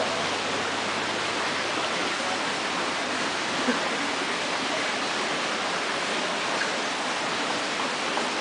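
Steady rushing and bubbling of aquarium water: air stones sending up columns of bubbles and the filtered water surface churning in the fish tanks.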